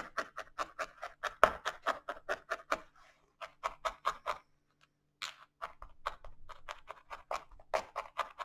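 A felting needle stabbing rapidly and repeatedly through wool fibres wrapped on a pipe cleaner into a felting board, about five pokes a second, with two short pauses. The wool is being felted firmly to secure it as a flower stem.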